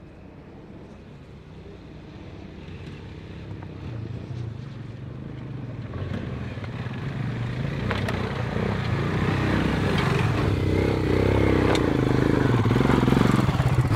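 Two single-cylinder adventure motorcycles, a KTM 390 Adventure and a Royal Enfield Himalayan, climbing a rocky track toward the listener, their engine note growing steadily louder as they approach. A couple of sharp clacks, stones knocked under the tyres, come in the second half.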